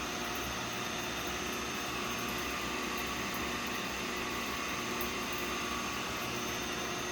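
Coffee roasting machine running: a steady mechanical hum of its motors and fan with constant tones.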